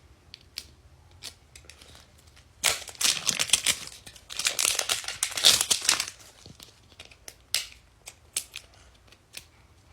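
Plastic wrapping of a Mini Brands surprise ball being torn and crinkled, in two spells of dense crackling a few seconds in, with scattered small clicks and rustles around them.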